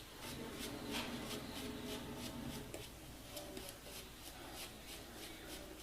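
Faint wet-shaving sounds: quick, even scraping strokes at the face, about three or four a second.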